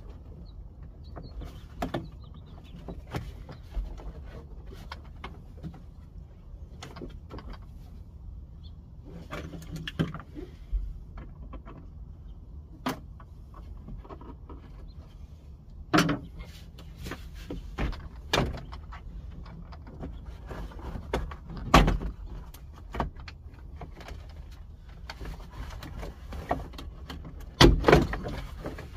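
Hard plastic interior trim of a car's rear quarter being pried and worked loose by hand: scattered clicks, knocks and rattles, with a few sharper knocks, the loudest near the end.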